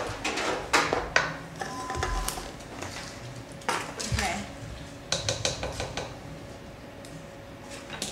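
Spoon clinking and scraping against a pot and pan as macaroni and cheese is stirred and moved: a run of separate clinks and scrapes, with a quick cluster about five seconds in.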